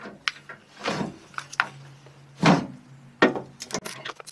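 Wrench working a main bolt loose on an Andersen Ultimate hitch base: a run of separate metal clunks and knocks, with several sharp ones close together near the end.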